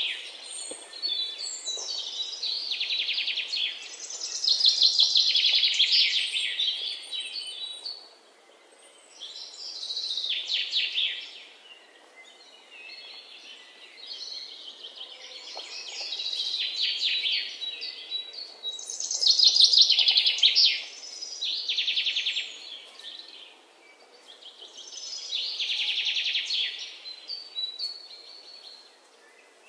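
Hot oil sizzling and crackling around chicken pakoras deep-frying in a kadai. It swells louder and dies back in waves every few seconds.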